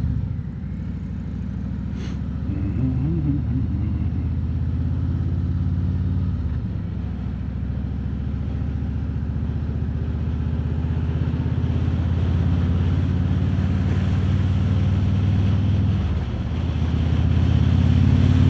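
Harley-Davidson Road King Special's V-twin engine running under way, with some wind on the microphone. The engine note eases off a couple of times and swells louder near the end as the throttle opens.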